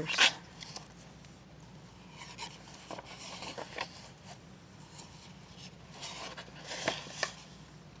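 Gel-printed paper pages of a handmade journal being handled and turned by hand: a brief swish just after the start, soft rubbing and rustling, and two more quick swishes of a page being flipped about seven seconds in.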